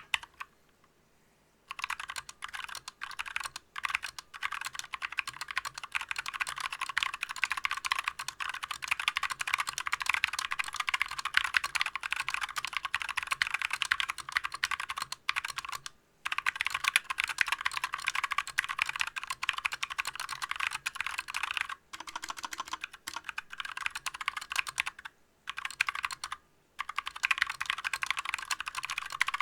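Fast touch-typing on a GMMK Compact mechanical keyboard with stock Yok Purple Trash Panda tactile switches, unlubed and with unmodified stabilizers: a dense, rapid run of key clacks. It starts after a single click and a short pause, with a few brief breaks along the way.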